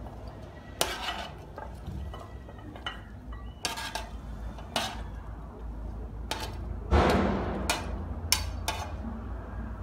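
Kitchen utensils and chopped vegetables knocking and clinking against a glass Pyrex dish as the vegetables are added. The knocks come one by one at irregular moments, with one louder clatter about seven seconds in.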